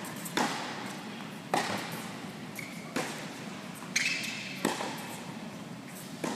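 Tennis ball being struck by rackets and bouncing on an indoor hard court during a rally: six sharp pops about every second or so, each echoing in the large hall, with two short shoe squeaks on the court surface.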